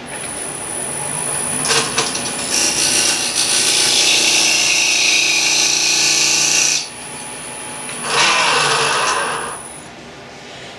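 Wood lathe running with a small African walnut blank spinning fast, while a turning tool cuts into the wood in two spells: a long one of about four seconds and a shorter one a couple of seconds later. The lathe stops near the end.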